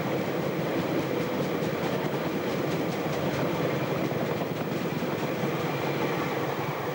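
Freight train of covered bogie hopper wagons rolling past close by: a steady noise of steel wheels on the rails, with a run of rhythmic clacks from the wheels over the rail joints.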